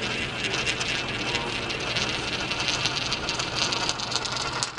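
A coin rolling on its edge round a spiral coin funnel (gravity wishing well), a continuous fast rattling whir that grows louder near the end as it spirals in toward the centre hole.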